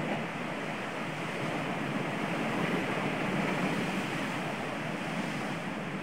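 Sea waves breaking and washing over a rocky shore: a steady rushing surf that swells a little around the middle.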